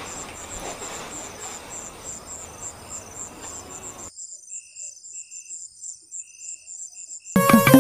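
Crickets chirping in a steady, even pulse over a background hiss. The hiss cuts out about four seconds in, and a second, lower chirping is then heard. Music comes in just before the end.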